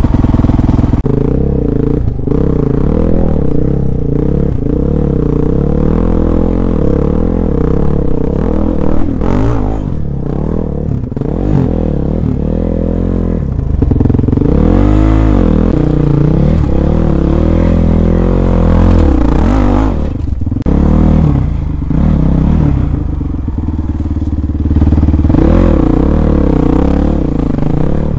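Dirt bike engine heard close up from the rider's own bike, revving up and down over and over as the throttle is worked climbing over rocks and ledges.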